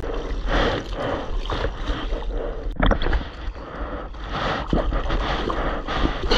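Surf water splashing and sloshing close around the microphone in irregular bursts, with a sharper splash about three seconds in. Wind buffets the microphone throughout as a steady low rumble.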